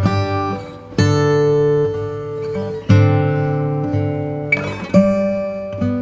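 Background music on acoustic guitar: plucked, ringing chords, a new one struck about every two seconds.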